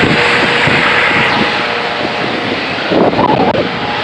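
Helicopter's engine and rotor running loud and steady as it hovers and lifts away. About three seconds in there is a brief louder burst.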